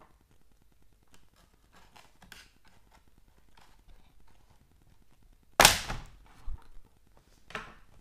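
Plastic retaining clips of a Lenovo IdeaPad Y700 laptop's bottom cover snapping loose as the cover is pried off. A few faint clicks come first, then one loud sharp snap about five and a half seconds in, followed by two smaller snaps.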